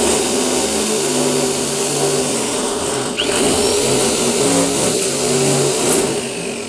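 DJJ32 electric sheet metal shear running steadily under load as its blades cut through a galvanized iron sheet.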